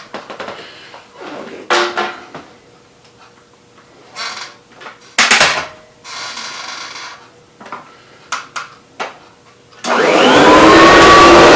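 Clicks and knocks of handling a vacuum cleaner, then near the end its motor is switched on, spinning up with a rising whine into a loud, steady run.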